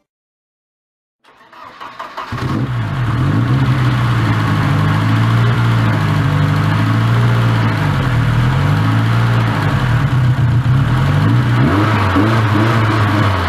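Rebuilt turbocharged Mercedes-Benz 190E engine starting about a second in and running steadily, its pitch dipping and rising a few times as the revs change.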